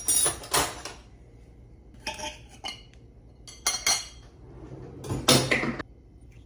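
Kitchen dishes and cutlery clattering in a string of short clinks and knocks, about six in all, the loudest about five seconds in.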